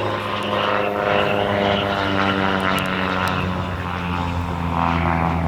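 Single-engine propeller aerobatic plane flying by, the engine running steadily with its note slowly falling in pitch as it passes; the announcer calls it a 150-horsepower, beautiful running engine.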